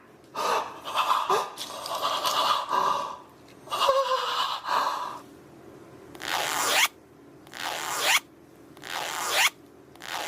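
A zipper being run up and down by hand, about four long zipping strokes at an even pace in the second half, after a stretch of scraping and rustling as the fabric is handled.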